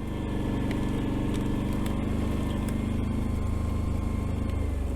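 Can-Am Renegade 1000 ATV's V-twin engine running steadily while riding, dipping briefly in pitch near the end, with a few faint clicks over it.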